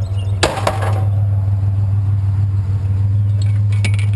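Pickup truck engine idling with a steady low hum. There is a loud clunk about half a second in and a few short clicks near the end.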